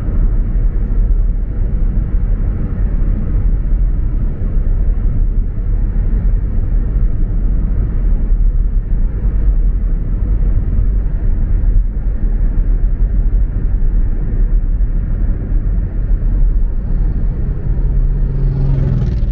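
Steady low road and engine rumble inside a moving car's cabin. Near the end a faint steady hum joins in briefly as an oncoming truck passes.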